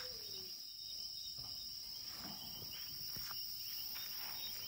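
Steady high-pitched chorus of night insects, with a few faint soft knocks.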